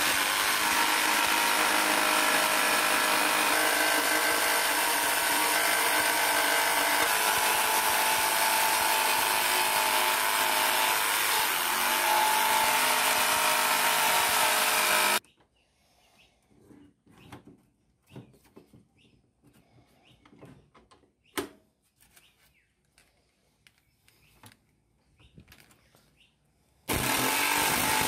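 Electric jigsaw cutting through a thin steel plate, a loud steady buzzing. It stops abruptly about halfway through, leaving near silence with a few faint clicks, and starts cutting again near the end.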